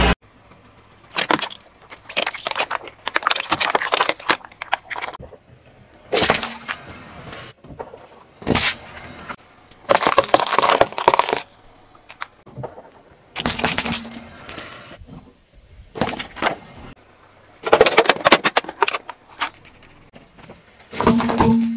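Car tyre crushing small objects one after another: about ten separate bursts of sharp plastic cracking and crunching with quiet gaps between them, among them plastic syringes snapping under the wheel.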